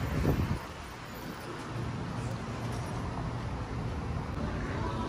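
Low steady rumble of road traffic, with a brief low thump just after the start.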